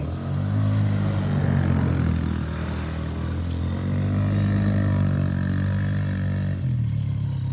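Small youth ATV engine revving up as the quad pulls away across sandy dirt. The engine note rises and falls with the throttle and eases off briefly near the end.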